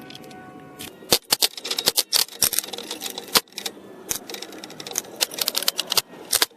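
A run of sharp clicks and taps in irregular clusters: metal tools and plastic parts being handled during hands-on work on a car engine.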